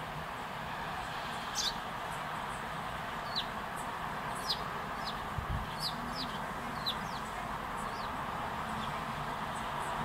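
Eurasian tree sparrows chirping: short, scattered chirps, each dropping quickly in pitch, over a steady background rush.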